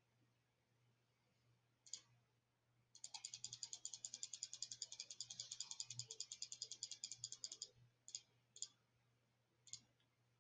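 Faint clicking at a computer: a single click, then a fast, even run of about ten clicks a second for four to five seconds, then a few separate clicks near the end.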